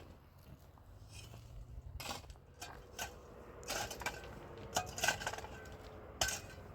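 Small hard objects knocking and clinking in a scattered series of short, separate strikes, more of them in the second half.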